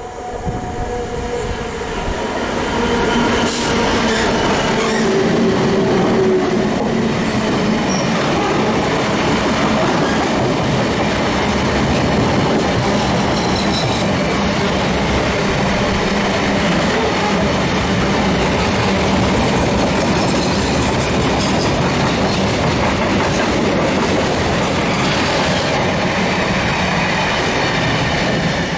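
A DB Class 66 diesel freight locomotive, its two-stroke V12 engine running, passes close by; its engine note drops in pitch a few seconds in as it goes past, followed by a long steady rumble of empty flat wagons rolling over the rails.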